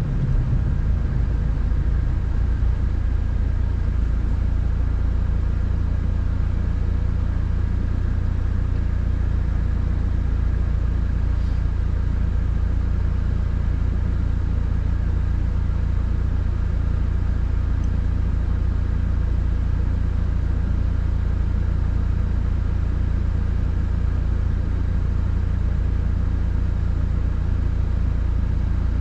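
Steady low rumble of engine and road noise inside a Subaru WRX's cabin while driving, holding an even pace without revving.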